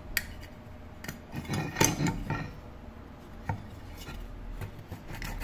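A thin steel needle scraping and tapping on an aluminium pressure-cooker lid, with scattered sharp clicks, as caked dirt is picked out of its clogged vent holes.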